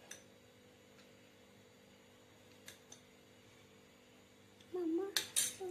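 Steel spoon faintly clicking against a glass bowl and the cake as sugar syrup is spooned over a sponge layer: a click at the start and two soft ticks midway. Near the end, a louder cat meow with a few sharp clicks.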